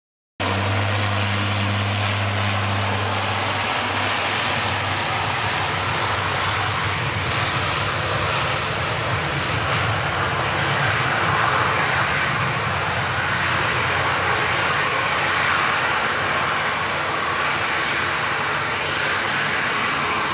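Jet engines of an Airbus A321 and a Boeing 777-300ER taxiing nose-on, a steady even rush at taxi power. It starts after a brief dead gap, with a low hum beneath it for the first few seconds.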